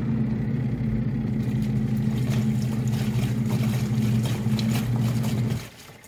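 KUPPET twin-tub mini washing machine's wash motor running, a steady hum as it churns water and clothes in the tub, with the wash timer knob's clockwork ticking fast on top. The hum starts at once and stops shortly before the end.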